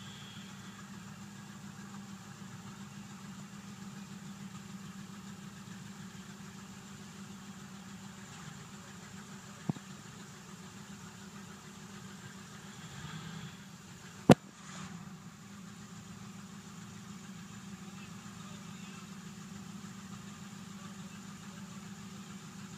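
Pickup truck engine idling steadily. A sharp click comes a little under ten seconds in, and a much louder one a little after fourteen seconds.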